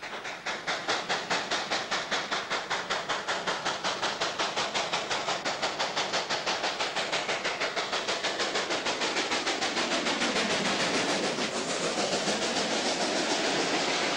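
Steam locomotive working hard, its exhaust beats quickening as it accelerates, until they run together into a steady rush near the end as the train passes close.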